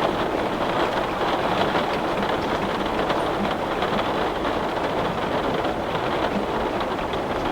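Heavy rain beating steadily on window glass, a dense even patter with many small drop taps.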